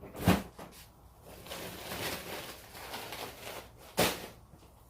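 Items being handled and set down: a sharp knock, then about two seconds of rustling, then another sharp knock.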